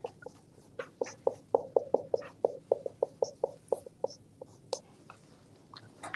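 Felt-tip marker squeaking on a whiteboard as lines and words are drawn: a quick run of short squeaks, about five a second, from about a second in until nearly five seconds in.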